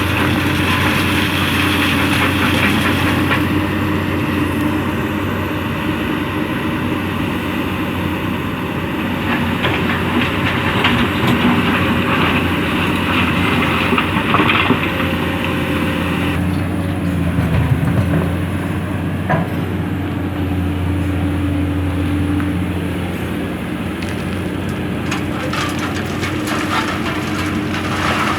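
Komatsu PC200 hydraulic excavator's diesel engine running steadily under load, with stone and sand grinding and clattering in the bucket as it digs. The engine note shifts about halfway through.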